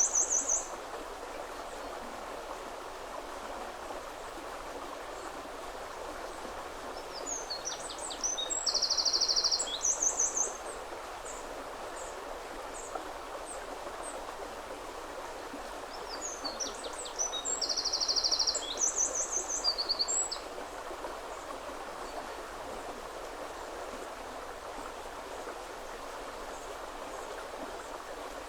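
Steady rush of flowing river water. Over it a songbird repeats a short, high, trilled song about every nine seconds, heard at the start and twice more.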